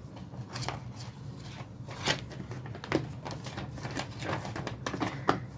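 Makeup palettes being put back into their box: scattered light clicks and rustles of the packaging being handled, with a sharper knock about two seconds in.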